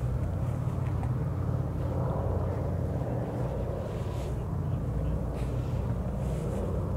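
Four Wright R-1820 Cyclone nine-cylinder radial engines of a B-17G Flying Fortress in flight, droning steadily as the bomber passes.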